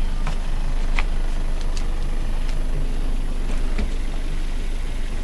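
Car engine idling steadily, with a few light clicks over it.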